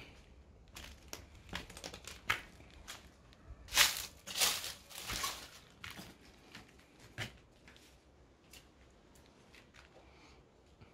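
Footsteps crunching and crackling through dry leaf litter and grass, with a cluster of louder crunches about four to five seconds in and only scattered steps after that.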